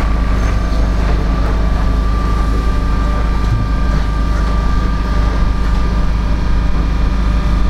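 Standing ЭП3Д electric train giving off a loud, steady low rumble with a steady high whine over it from its running on-board equipment.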